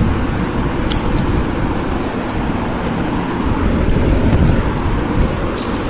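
Steady rumbling background noise, with a few faint ticks and crackles over it.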